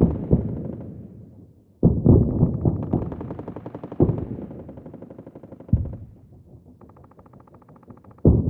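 War battle sound effect: rapid bursts of automatic gunfire mixed with distant explosion booms. Sudden loud blasts come about two seconds in, four seconds in, just before six seconds and near the end, each fading away slowly, with a rattle of rapid fire near the end.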